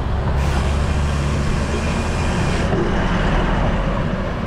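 Road traffic: a motor vehicle's engine running close by with a steady low hum, and a hiss that comes in about half a second in and cuts off sharply after about two seconds.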